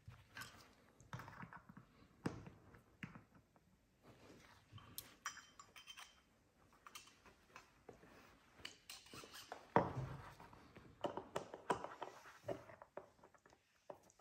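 Scattered light metallic clicks and clinks of piston, wrist pin and clip-installation tool being handled while a wrist-pin retaining clip is worked into a piston, with a louder knock about ten seconds in.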